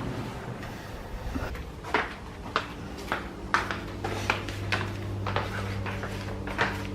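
A run of sharp clicks and knocks from handling in the kitchen. A steady low hum comes in about two and a half seconds in and grows stronger a little later: the new coffee machine running.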